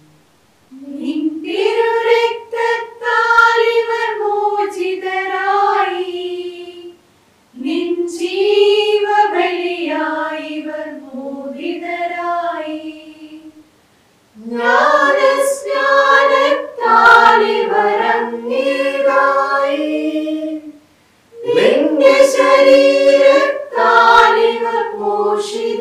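Small choir of women and a man singing a Malayalam hymn for the departed, unaccompanied. The hymn runs in long phrases, with short breaths of silence between them.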